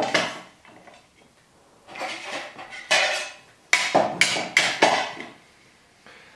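CNC-cut diorama panels and parts knocking and clattering as they are handled and fitted together by hand: a series of sharp knocks, the loudest cluster about four seconds in.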